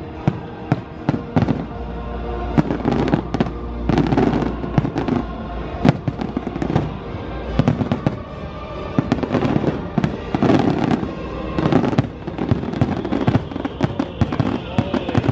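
Fireworks show: a rapid string of aerial shells bursting with sharp bangs, a few a second, over the show's music soundtrack.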